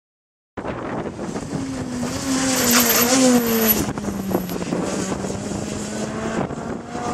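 Ford Fiesta rally car passing at speed on a tarmac stage, starting about half a second in. The engine note wavers and steps in pitch as it goes by and is loudest about three seconds in, then holds a steady, slowly falling note as the car draws away.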